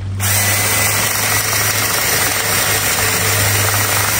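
Cordless drill boring a hole into the end grain of an aspen log, its motor whining steadily under load as the bit cuts through the wood.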